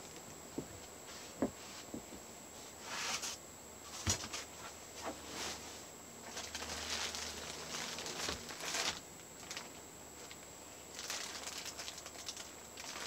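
Plastic wrapping around a memory foam mattress rustling and crinkling in bouts as it is handled and shifted, with a few light knocks in between.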